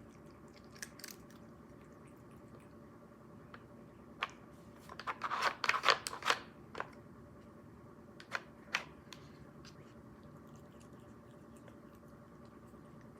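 A cat chewing, with sharp crunching bites. They come singly at first, then in a quick flurry about five to six and a half seconds in, then a couple more.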